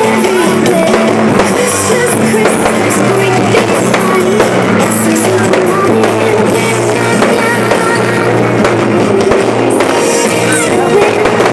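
Loud rock music with singing, drums and guitar, played over a sound system as the soundtrack of a pyromusical fireworks show.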